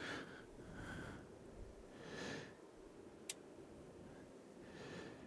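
Quiet room with a few soft breaths of the person at the bench, about a second apart, and a single sharp click a little past halfway.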